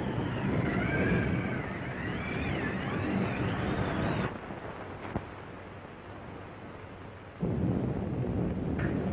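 Wind howling, a whistle wavering up and down in pitch over a low rumble. It drops off abruptly about four seconds in, leaving a quieter rumble, and comes back loud about seven seconds in.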